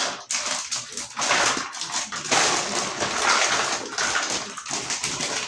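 Rustling and rummaging through plastic bags of toy building-block pieces, in uneven surges of crinkling noise.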